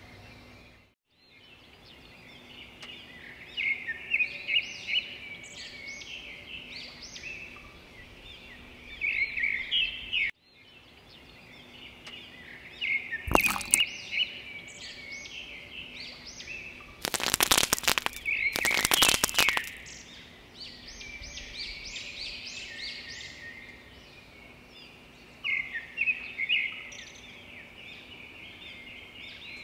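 Small birds chirping and singing steadily, with short quick calls. A sharp crack cuts in about 13 seconds in, and a close run of loud cracks and crunches follows about 17 to 19 seconds in.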